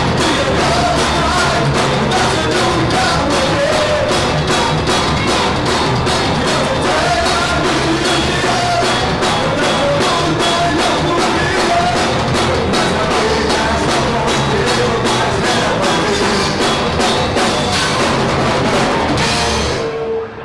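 Live rock band playing at full volume, drum kit driving a steady beat under bass, guitars and vocals, heard through the PA from right beside the speakers so the sound is loud and rough. The music stops just before the end.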